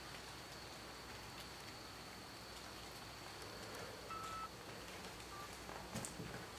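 Quiet room tone: an even hiss with a thin steady high whine. A short faint beep sounds about four seconds in, another shortly after, and a few faint clicks come near the end.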